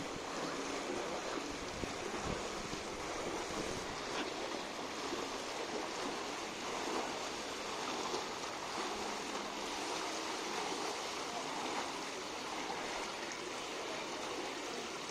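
Splashing and churning water from several swimmers racing breaststroke in a pool, a steady wash of water noise.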